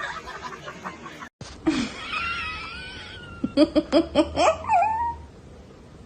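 A person laughing in a quick run of about eight laughs, after a high wavering whine.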